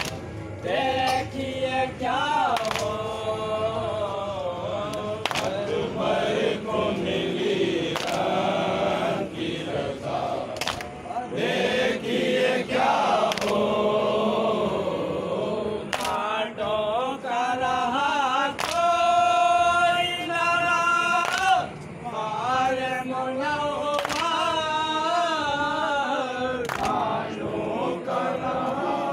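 A group of men chanting a mourning lament (nauha) together in a slow, drawn-out melody, with sharp beats at a steady pace beneath it.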